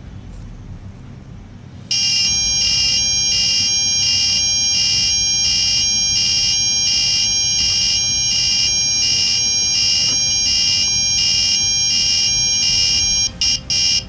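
Small electronic buzzer on an Arduino MQ2 smoke alarm sounding from about two seconds in: a loud, high-pitched tone pulsing about twice a second, breaking off briefly a couple of times near the end. It is set off because smoke at the MQ2 sensor has pushed the reading past the 250 alarm threshold.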